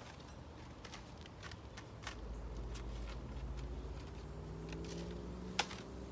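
Light clicks and taps of a Makita 12-volt jigsaw's blade being changed by hand: the blade clamp loosened, the old blade pulled out and a new scroll blade seated, with one sharper click near the end. A low rumble builds underneath from about two seconds in.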